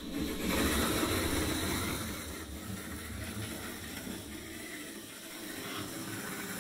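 HO scale model diesel locomotive running on the track under power: the steady whir of its small electric motor and gears with the wheels rolling on the rails, getting louder about half a second in and easing off gradually. It is a used locomotive on a quick test run that is moving after a hesitant start.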